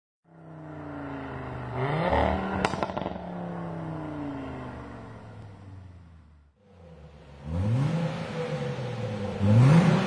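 Nissan 370Z Nismo's 3.7 V6 revving through an Armytrix cat-back exhaust. The first rev climbs to a peak about two seconds in, with a single sharp crack just after it, then falls away slowly. Two more quick revs follow in the second half.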